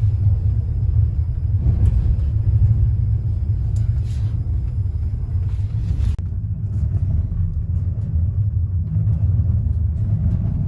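Steady low rumble of a moving train heard from inside the passenger carriage. The faint hiss above it drops away suddenly about six seconds in.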